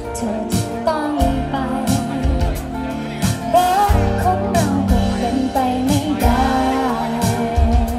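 A live band plays a pop song with a steady drum beat and sustained chords, and a singer's melody comes in about a second in.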